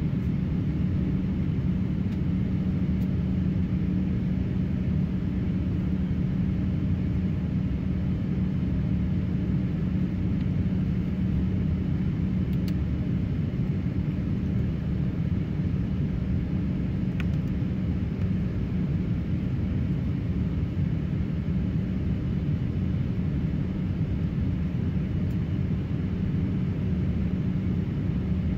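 Steady low cabin drone inside an Airbus A350-900 in flight, the engine and airflow noise heard from a passenger seat, with a steady hum underneath.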